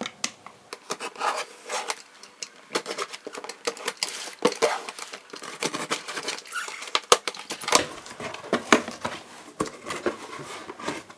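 Utility knife slitting packing tape on a cardboard shipping box, then the cardboard flaps being pulled open: an irregular run of scrapes, taps and crackles.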